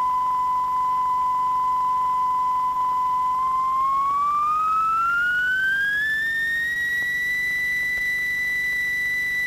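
A pure sine-wave tone from an audio oscillator, held steady, then gliding smoothly up about an octave as the oscillator's frequency dial is turned, and holding at the higher pitch.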